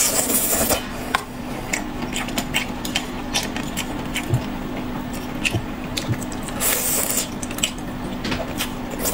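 Close-miked eating sounds: chewing and lip-smacking of spicy cold-pot skewered food, many short sharp clicks, and a longer sucking sound about seven seconds in.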